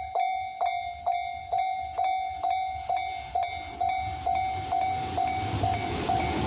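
Japanese level-crossing warning bell ringing its repeated electronic 'kan-kan' strikes, about two a second. From about halfway in, the rumble of an approaching train builds up and begins to cover the strikes near the end.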